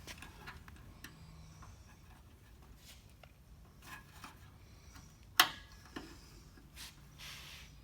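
Scattered light clicks and taps, with one sharp click about five and a half seconds in.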